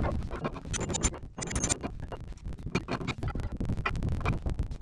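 Irregular scraping and clinking of heavy steel parts being worked by hand: a half pin being shifted in its bore at a boom lift's hydraulic cylinder mount, with a crowbar prying the cylinder into line.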